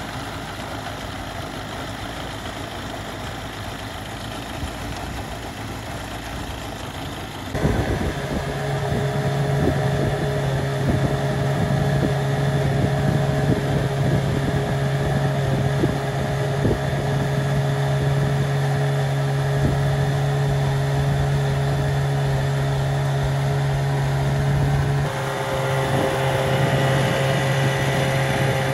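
A 1993 Mercury 25 hp two-cylinder two-stroke outboard runs at idle. About a quarter of the way in it is heard running steadily at high speed under load, with a strong steady drone and rushing water. It runs smoothly without bogging, now that its failed ignition coil has been replaced.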